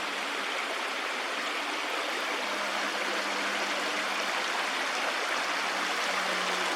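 Small creek waterfalls: water running steadily over rocks in a constant, even rush.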